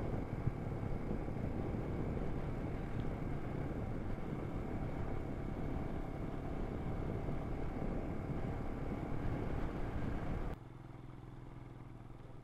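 Motorcycle under way: steady engine and road noise, fairly even throughout. Near the end it cuts off suddenly to a quieter, steady low hum.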